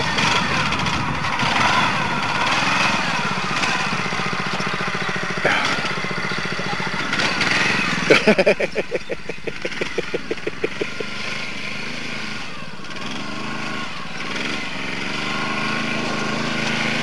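Small petrol engine of a ride-on vehicle running, its pitch rising and falling as the throttle changes, with a string of quick pulses about eight seconds in that fade away over a few seconds.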